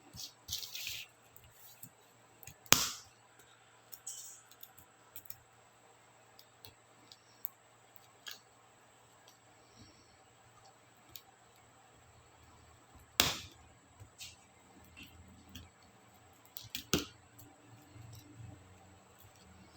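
Sparse sharp plastic clicks and snaps, with three louder ones about 3, 13 and 17 seconds in and faint ticks between them: laptop keycaps and their scissor-switch clips being pried off and handled.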